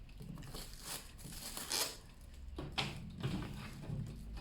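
Handling noises while unpacking a microwave: a few sharp knocks and crinkling, tearing rustles of packaging.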